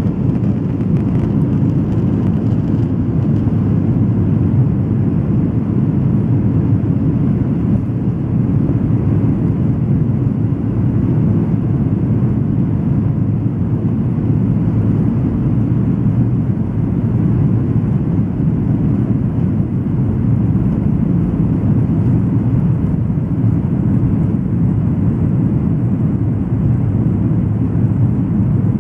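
Airliner cabin noise from a flydubai Boeing 737: its jet engines and airflow make a steady, even low rumble that does not rise or fall.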